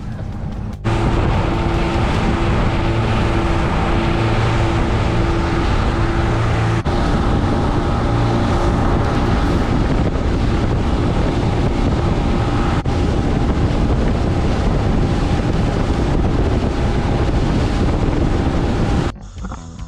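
Motorboat running at speed, its engine's steady drone mixed with heavy wind buffeting the microphone; it starts about a second in and cuts off just before the end.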